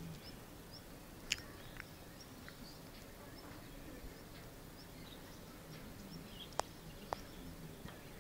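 Quiet outdoor background with faint, scattered bird chirps and a few short, sharp ticks: one about a second in and two near the end.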